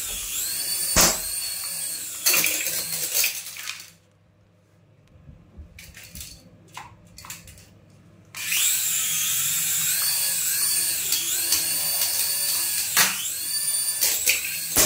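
Small toy RC helicopter's electric rotor motors whining high-pitched, the pitch rising and falling in repeated arches as the throttle changes, with a few sharp knocks. The motors stop for about four seconds in the middle, leaving only a few faint clicks, then start again abruptly.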